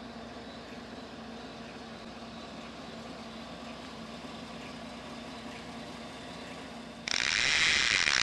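Faint steady background hum with a few steady tones. About seven seconds in, a loud mechanical film-projector sound effect starts suddenly with the channel's logo intro.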